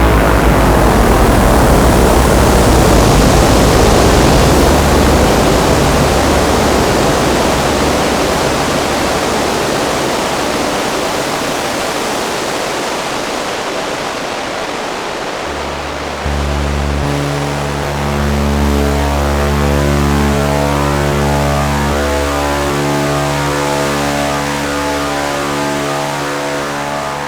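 Modular synthesizer patch through the Make Noise Bruxa module: a dense hissing wash over a low drone that slowly thins out, then about sixteen seconds in, pitched tones come in and step in a steady repeating pattern.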